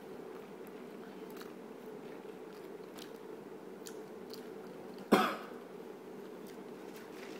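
Elderly woman chewing, with faint scattered crunches, then one short, loud cough about five seconds in.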